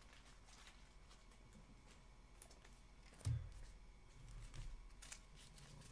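Faint handling of trading cards on a tabletop: scattered light clicks and rustles, with one dull thump on the table a little over three seconds in.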